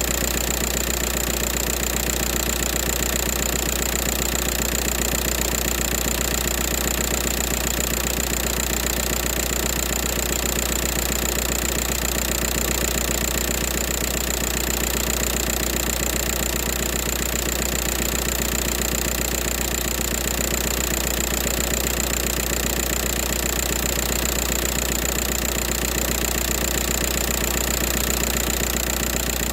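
A 2004 Volkswagen Jetta TDI's 1.9-litre four-cylinder turbodiesel idling steadily, its level and sound unchanging.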